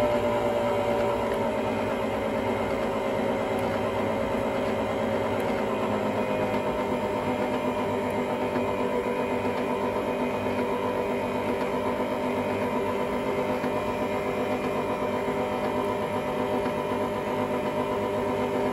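Khind SM506P stand mixer's motor running with its beater in an empty bowl: a steady mechanical whine and hum, its pitch sinking slightly over the first several seconds and then holding steady.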